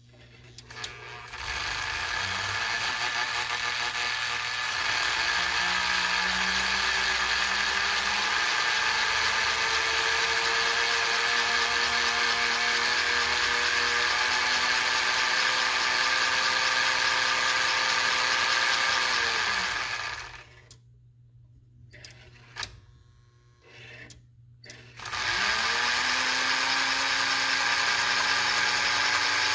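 American Flyer 290 Pacific model steam locomotive's electric motor and gearing, freshly serviced with new brushes, running in place as a steady whirring whine that rises in pitch as it speeds up. About two-thirds of the way through it winds down and stops, a few clicks follow, and then it spins up again and runs on.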